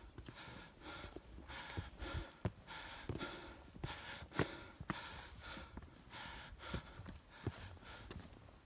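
A person breathing hard close to the microphone, quick in-and-out breaths about two or three a second, as after a hurried uphill hike, with a few soft knocks of steps or handling in between.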